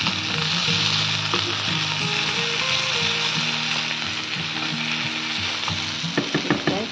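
Onion-tomato masala with ginger, garlic and ground spices sizzling steadily in a nonstick frying pan as it is stirred with a spatula. There is a quick run of clicks near the end as the spatula knocks against the pan.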